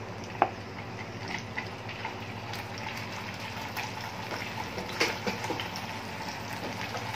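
Blocks of fresh tofu frying in hot oil in a pan: a steady sizzle with scattered crackles and pops as the water in the tofu cooks off. There is one sharp pop about half a second in and another about five seconds in, over a low steady hum.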